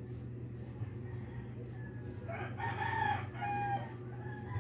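A rooster crowing, its call loudest a little past halfway, over a steady low hum.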